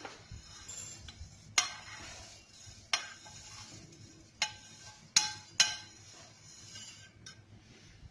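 Stainless steel frying pan and utensil clinking as dry-roasted flattened rice (poha) is tipped and scraped out into a ceramic bowl: about five sharp metallic clinks at uneven intervals, some ringing briefly, with light rustling of the grains between them.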